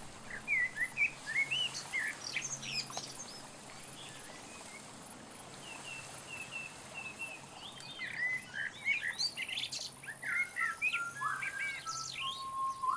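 Songbirds chirping and singing in many short rising and falling notes, with a run of quick repeated notes about halfway through. Near the end a held, whistle-like tone comes in.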